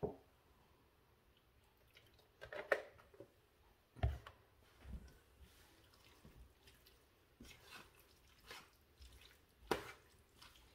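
Spatula stirring thick, wet chicken pot pie filling in a stainless steel skillet: soft squishing with a few light knocks of the spatula against the pan.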